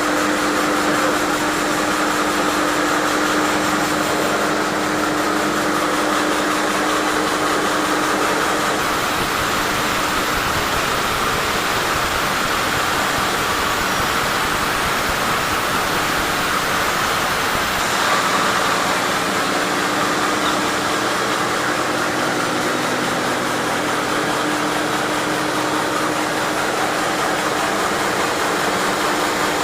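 Sawmill running steadily as mahogany logs are sawn: a machine hum with a dense hiss over it, swelling slightly about eighteen seconds in.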